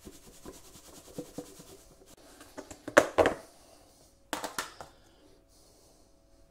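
Plastic food tub being handled: faint rustling and light ticks from the floured fish fillets inside, then a sharp clatter about three seconds in as the snap-on lid is pulled off, and a shorter clatter of knocks about a second later as the lid is set down.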